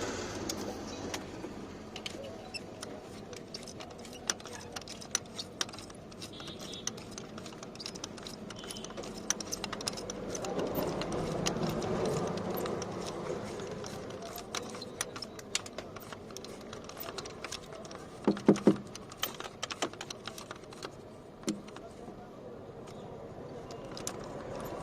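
Scattered light metallic clicks and clinks of hand tools and parts being handled during starter motor repair work, with a short cluster of louder knocks about 18 seconds in, over steady background noise.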